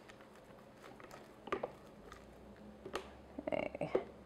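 Silicone spatula stirring thick cream cheese in a plastic food processor bowl and scraping the bottom: faint scrapes and a few light knocks against the bowl, a cluster of them near the end.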